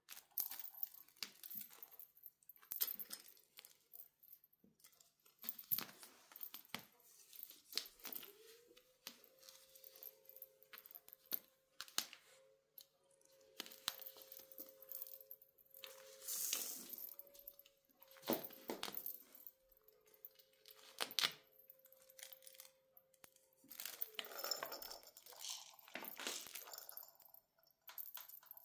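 Small cat toys rattling, clinking and clattering in irregular bursts of sharp clicks as a cat bats them about. A faint steady hum sets in about eight seconds in and stops a few seconds before the end.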